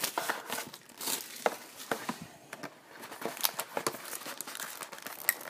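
A 2014-15 Upper Deck Trilogy hockey card box being opened by hand: scattered crinkling and rustling of the wrapping and cardboard, with light clicks and taps and a short lull about halfway.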